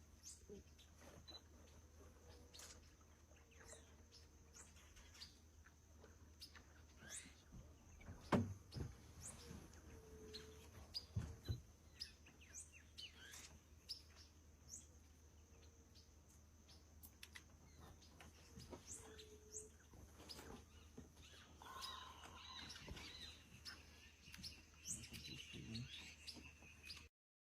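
Birds chirping faintly: many short, scattered chirps and calls over a steady low hum.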